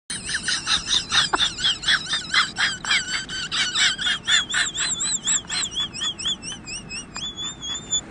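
A comedy sound effect of rapid high chirps, about three or four a second, each rising and then falling in pitch. They grow fainter near the end and finish on one longer wavering tone.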